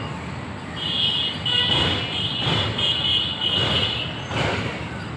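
Passenger train coaches rolling over a steel truss railway bridge: a steady rumble with repeated clacks of the wheels, and a high-pitched squeal that cuts in and out from about a second in until near the end.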